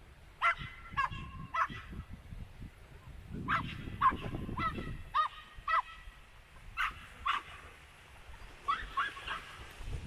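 An animal calling: about a dozen short, pitched calls in four groups of two to five, a call every half second or so within a group.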